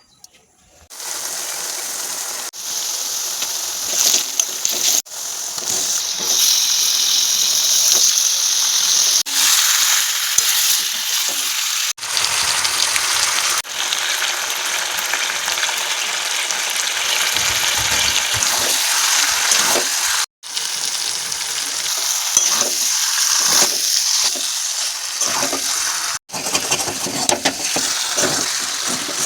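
Food frying and sizzling in hot oil in a pan while being stirred. The hiss starts about a second in and breaks off abruptly several times, as at edit cuts.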